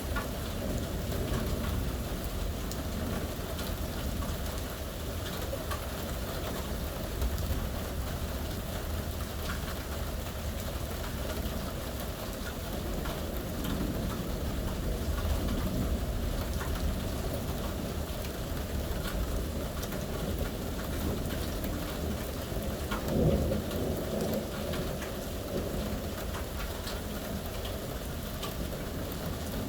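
Steady rain falling, with a low rumble of thunder underneath and a brief swell about three-quarters of the way through.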